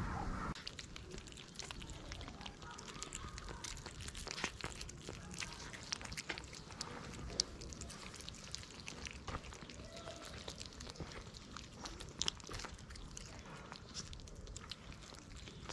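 Cat and kittens chewing and licking wet cat food off a plate close by: a steady, irregular run of small wet smacks and clicks.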